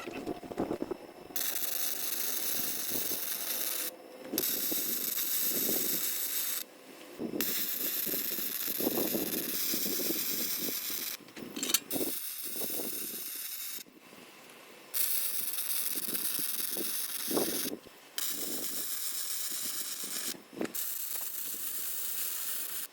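Lincoln Electric 211i MIG welder's arc running in about eight short welds of one to four seconds each, every one starting and stopping abruptly, with brief pauses and a few low knocks between them.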